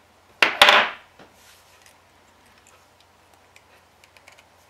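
Pliers and twisted paperclip wire handled on a wooden table: a sharp click about half a second in, then a short rustling scrape, followed by a few faint ticks.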